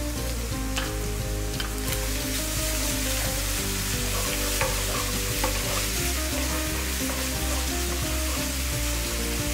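Ground pork, egg and peppers sizzling in a hot nonstick frying pan as a wooden spatula stir-fries in sambal, sweet soy sauce and ketchup. There are occasional light clicks of the spatula against the pan.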